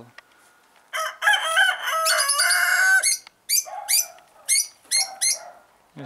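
A rooster crows once, a loud call of about two seconds starting about a second in. It is followed by about five short, sharp calls from the flock.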